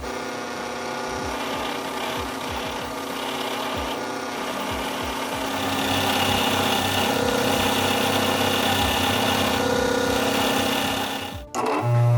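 Small electric power tool running steadily against the cast aluminium blade as it is finished, with a grinding rub over the motor's hum. It gets a little louder about halfway through and cuts off suddenly near the end.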